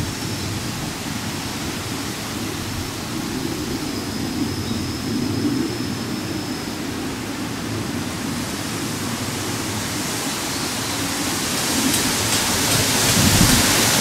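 Wind buffeting the microphone outdoors: a steady rushing noise that swells into a stronger gust near the end.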